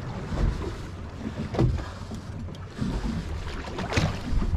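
Wind buffeting the microphone over small waves lapping against a boat's hull, with a couple of brief knocks about a second and a half in and near the end.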